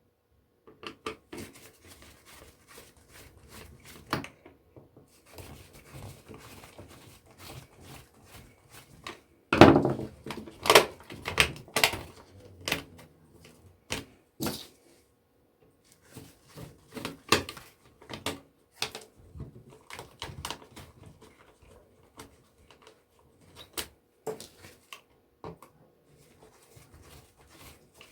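Irregular clicks, taps and knocks of electronic parts and hand tools being handled while an electronic unit is taken apart for scrap, with a run of louder knocks about ten seconds in.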